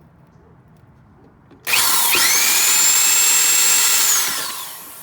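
Old electric drill switched on about a second and a half in: a loud whine that climbs quickly to a steady pitch, holds for about two and a half seconds, then falls away as the drill winds down.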